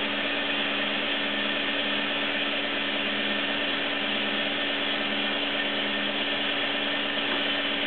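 Sharp SV-2412 CNC vertical machining center running with a steady hum and hiss, with one constant low tone, as its X and Y axes travel together to their home position during zero return.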